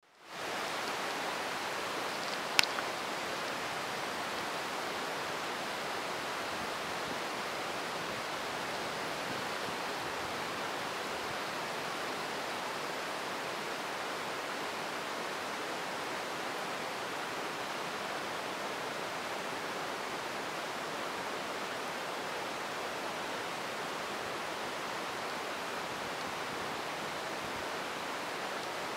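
Very heavy rain pouring down, a dense, steady hiss. A single sharp click about two and a half seconds in.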